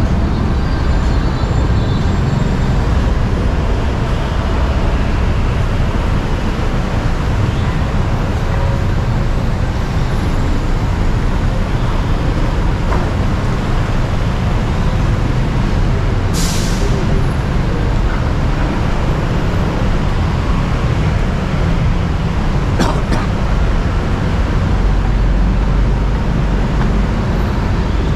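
Steady, loud road traffic on a busy city street: engines rumbling and tyres running. About halfway through, a bus's air brakes give one short, sharp hiss.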